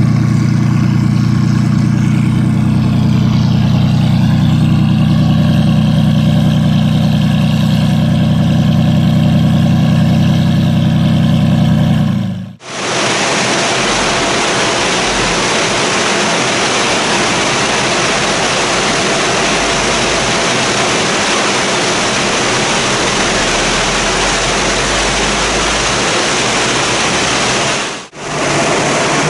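A sports car's engine idles with a steady low rumble. About twelve seconds in, the sound switches to a Subaru WRX STI's turbocharged flat-four running on a chassis dynamometer: a loud, steady, even noise without a clear pitch, which dips briefly near the end.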